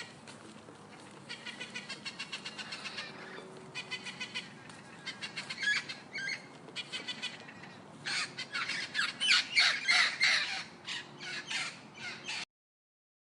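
A pet bird calling: a rapid string of short, harsh squawks and chirps, growing louder and denser about two-thirds of the way through, then stopping abruptly.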